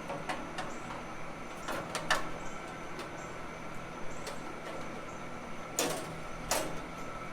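Scattered metallic clicks and knocks as a new bandsaw blade is handled and fitted onto a Wood-Mizer LT15 sawmill, with two louder short scrapes near the end.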